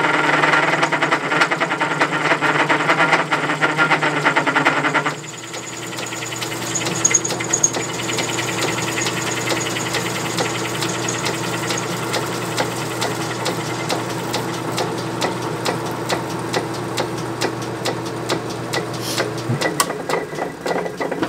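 Small metal lathe taking an interrupted cut on aluminium round stock: a rapid, even clatter as the tool strikes the partly flattened work, over the steady hum of the lathe, with the headstock bearings really audible under the load. The cut is heavier and louder for the first five seconds, then lighter. The motor hum stops near the end.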